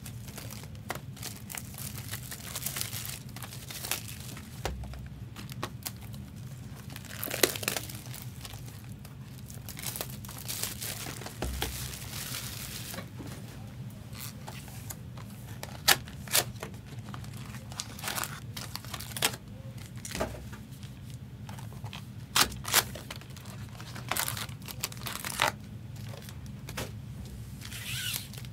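Plastic wrapping and cardboard of Upper Deck Marvel Platinum trading-card boxes crinkling and tearing as the boxes are opened and handled, with scattered sharp clicks and knocks, over a steady low hum.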